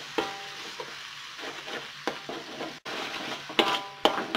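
Minced chicken and spice paste sizzling in a wok while a metal spatula stirs and scrapes through it, with several sharp clinks of the spatula against the pan.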